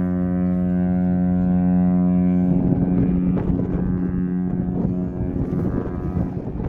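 Norwegian Prima cruise ship's deep horn sounding one long blast as a salute to a passing ship. It sets in suddenly, is at full strength for about two and a half seconds, then thins and fades under wind noise on the microphone.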